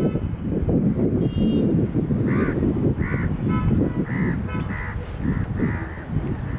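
A crow cawing, a string of about five or six short caws starting about two seconds in, over a gusty low rumble of wind on the microphone.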